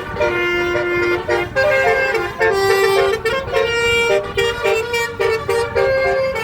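Telolet basuri 12-note bus horn playing a melody: a run of pitched horn notes, some held and some quick, changing without a break, over a steady low rumble.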